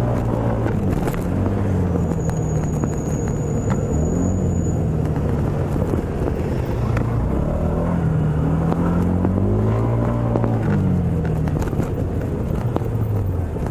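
Moped engine running through traffic, its note rising and falling as it speeds up and eases off several times, over low wind rumble on the microphone.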